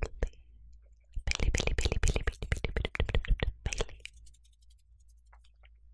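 A rapid run of crackling clicks right at the microphone, starting about a second in and lasting about two and a half seconds, with a few single clicks at the very start: close-miked ASMR trigger sounds.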